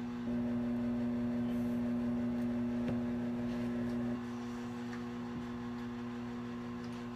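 A steady low electrical hum with several overtones, a little louder for the first four seconds, with a couple of faint clicks.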